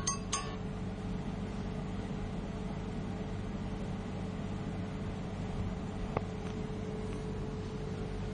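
The last chiming notes of a nursery-rhyme tune stop within the first half second. A steady low mechanical hum and hiss follows, with a single faint tick about six seconds in.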